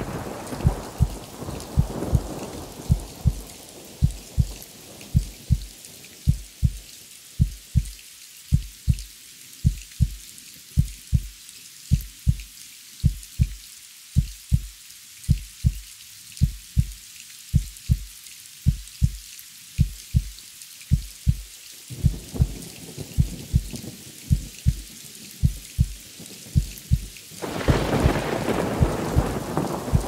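A heartbeat sound effect of steady, slow double thumps, lub-dub, over the hiss of falling rain. A thunder rumble fades out over the first few seconds, another sets in about two-thirds of the way through, and a louder roll of thunder swells up near the end.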